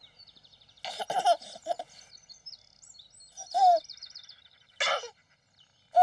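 A baby giggling in a few short bursts, with small birds chirping lightly in the background.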